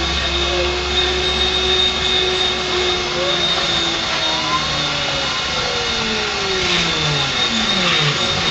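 Grizzly G0619 mill under CNC control dry-cutting a circular pocket in 6061 aluminium with a 6-flute carbide end mill at 1800 rpm: a steady spindle-and-cutting hum with a high tone, over which the axis drive motors whine in pitch glides that rise and fall again and again as the table traces the circle.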